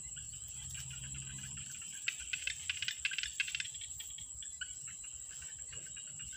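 Insects shrilling steadily at a high pitch, with a run of quick crackling clicks and rustles about two to three and a half seconds in from hands working through dry grass stems.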